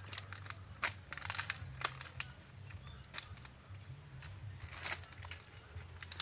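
Dry nipa palm fronds and leaf litter crackling and snapping in irregular crunches as they are handled and trodden on, with the loudest crunch about five seconds in.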